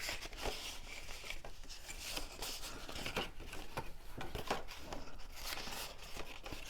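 Cardstock being folded along its score lines and creased by hand: a run of paper rustles and small clicks.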